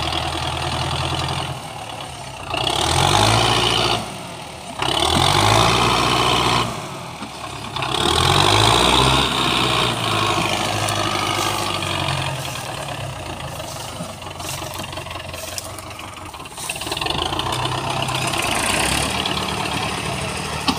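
Diesel farm tractor engine, just push-started after it would not start on its own, revved up three times in quick succession and then left running steadily at a lower speed.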